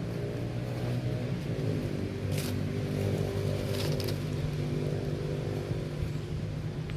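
A motor engine running steadily with a low hum, with two short rustling hisses near the middle.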